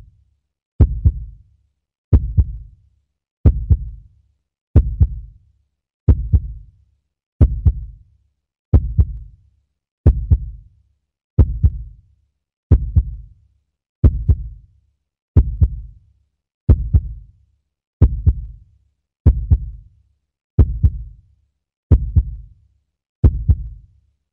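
Deep single thumps repeating at an even, slow pace, about one every second and a quarter, each dying away quickly into silence.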